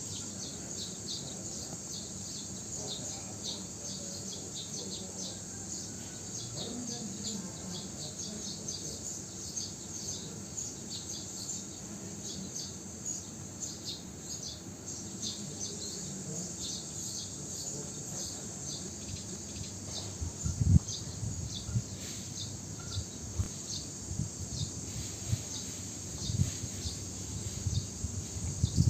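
Outdoor background of constant high-pitched chirping, many short chirps overlapping. From about two-thirds of the way in there are scattered low thumps and bumps.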